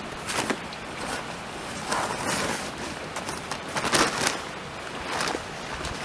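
A shovel scraping and scooping sand and cement for mortar: short gritty scrapes, four or five of them, about a second and a half apart.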